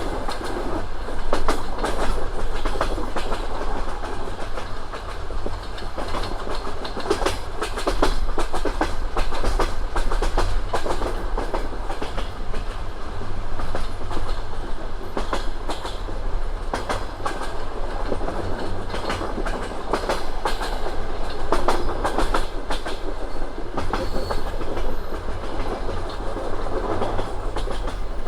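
Passenger train running at speed, its wheels clattering over rail joints in frequent irregular clicks over a steady rolling rumble.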